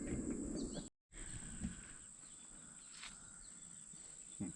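Steady high-pitched insect buzz with a few faint bird chirps, and some low noise during the first second. The sound cuts out completely for a moment about a second in.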